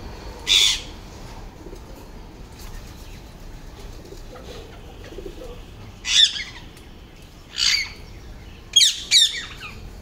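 Rose-ringed parakeets calling: five short, shrill screeches, one near the start and four in the second half, the last two in quick succession.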